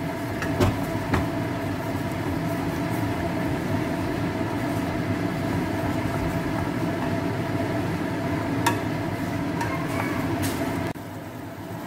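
Tomato-and-curd masala gravy cooking in a hot kadai, a steady sizzling noise under a low hum. The stirring spoon clicks against the pan a few times, and the sound drops off suddenly near the end.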